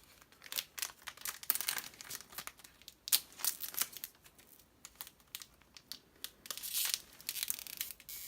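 Foil trading-card booster pack wrapper crinkling and being torn open, in a quick, irregular run of sharp rustles.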